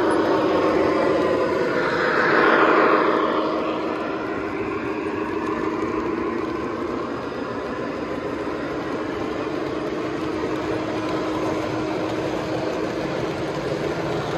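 Three-rail model train running on the layout, with a steady hum underneath. It swells as it passes close about two to three seconds in, the pitch easing down as it moves away.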